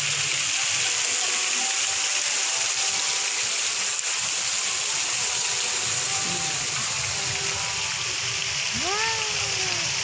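Steady rush of falling water from a garden waterfall, with faint music beneath it.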